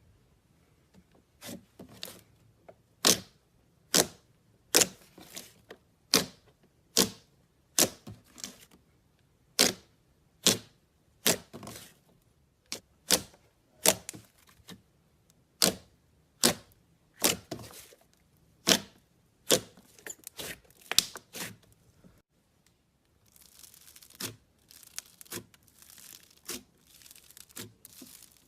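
Slime being squeezed and poked, giving sharp wet pops and snaps about once a second as trapped air bubbles burst. Near the end they run together into a quicker crackling.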